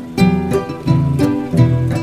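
Background music: a plucked-string melody of quick, ringing notes over a steady low bass.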